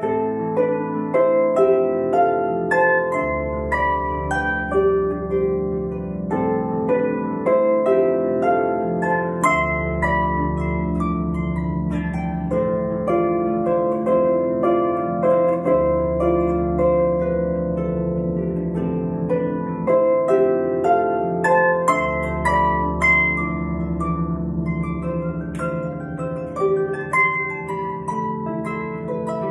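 Lever harp played solo: a flowing stream of plucked notes over low bass notes that ring for a few seconds at a time, struck afresh about every six seconds.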